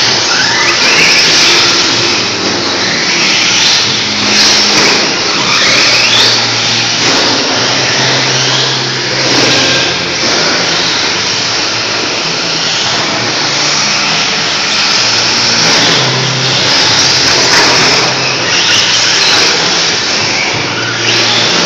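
Onboard sound of a TLR 22 electric 1/10-scale RC buggy lapping a dirt track: a loud, continuous rush of tyre, dirt and drivetrain noise, with low hum tones that come and go.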